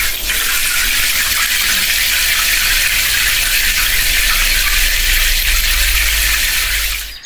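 Shower water spraying in a steady rush over a low hum, cutting off abruptly near the end.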